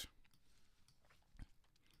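Near silence: faint room tone, with one short, faint click about one and a half seconds in.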